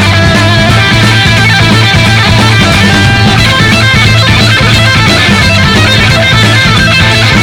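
Background rock music with electric guitar over a steady bass.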